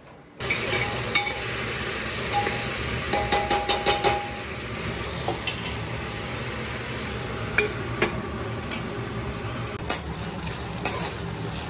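Metal spoon stirring and knocking against a cooking pot, with a quick run of clanks about three to four seconds in and a few single knocks later, over a steady sizzling hiss of food cooking.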